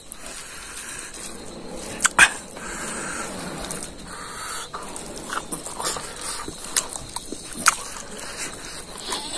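Close-up eating sounds: a man chewing rice and beef curry with his mouth open, with wet lip smacks and clicks, two sharp smacks about two seconds in.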